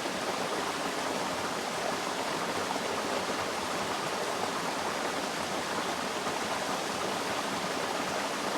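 Steady rush of running water from a small cascade or waterfall, an even noise with no splashes or breaks.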